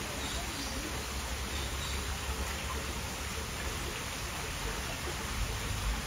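Steady rushing noise with a constant low rumble underneath.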